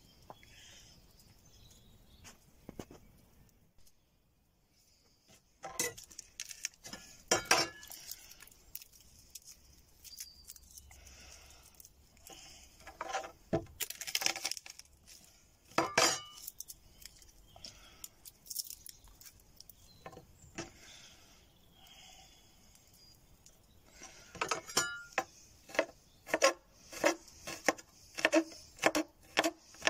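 Chef's knife working on a wooden cutting board: scattered knocks and clinks as a garlic clove is handled and cut, then a quick run of knife strikes on the board from near the end, about two a second, as the garlic is chopped.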